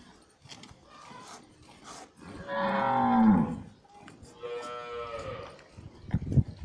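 A cow moos twice: a loud call of about a second that drops in pitch at its end, then a softer one. A few dull thumps follow near the end.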